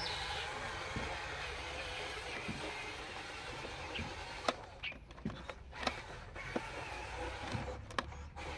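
Faint whir of a Huina 1573 RC dump truck's small electric drive motor and gearbox as it drives over dirt, with a few sharp clicks past the middle.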